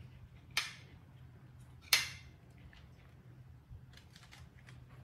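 A small knife cutting and peeling a firm fruit, giving two sharp crisp snaps, the second about two seconds in and the loudest, then a few fainter clicks.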